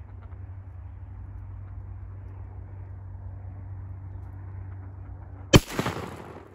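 A single shotgun shot, fired from a Soviet Baikal shell, about five and a half seconds in, with a rolling echo that dies away within about a second. Before it there is a steady low rumble.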